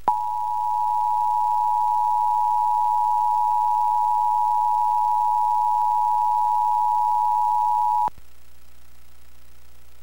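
Emergency Alert System attention signal: two steady tones near 853 and 960 Hz sounding together, held for about eight seconds and then cutting off suddenly. It marks the start of a required monthly test of the alert system.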